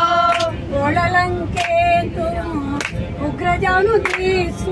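A group of voices singing a devotional bhajan to Narasimha together, without instruments. Hand claps keep the beat about every 1.3 seconds.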